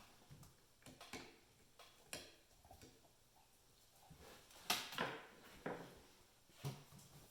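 Light clicks and knocks of hand tools and metal window parts being handled, scattered and irregular, with one sharper knock a little past the middle.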